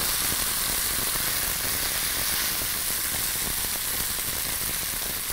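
Cooked spaghetti sizzling in a skillet of hot fried-chicken grease and drippings as it is poured in, a steady even hiss of frying: the nice fried sound of oil hot enough to fry it.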